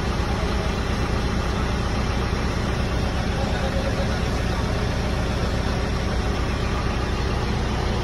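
Bull backhoe loader's diesel engine idling steadily at about 900 rpm.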